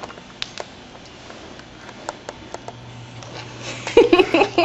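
A baby laughing in short bursts near the end, after a few faint scattered clicks.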